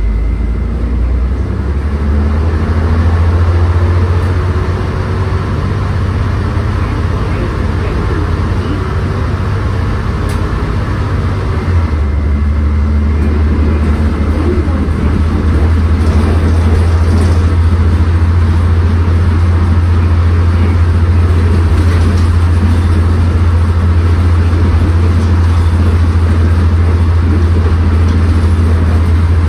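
Volvo Super Olympian double-decker bus under way, heard from inside the lower deck: its Volvo D10A-285 six-cylinder diesel and ZF 5HP590 automatic gearbox give a steady low drone with road noise. The drone changes about twelve seconds in.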